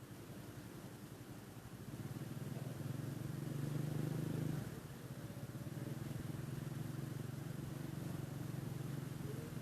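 An engine running, growing louder about two seconds in, loudest near the middle, then dipping briefly and running on steadily.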